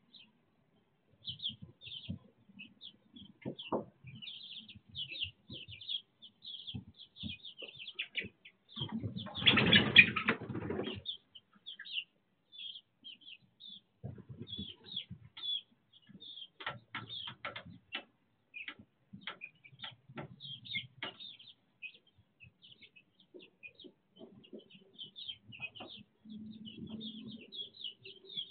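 A brood of young chicks peeping in high, rapid chirps almost without pause, with a loud flurry of wing-flapping and scuffling about ten seconds in and scattered taps and scratches in the litter after it.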